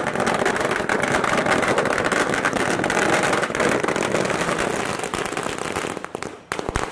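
Firecrackers going off on the road in a rapid, continuous crackle of pops, thinning out into a few separate bangs near the end.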